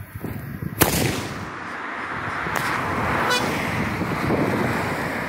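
Parachute firework tube firing its shot with a sharp bang about a second in, followed by a fainter pop a couple of seconds later. A rushing wind noise on the microphone builds behind them.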